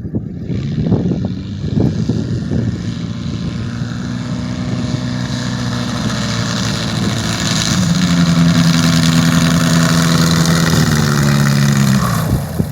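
Zenith light aircraft's engine and propeller running as the plane flies past. It grows louder, its pitch steps down a little about two-thirds of the way through, and the engine note falls away sharply near the end.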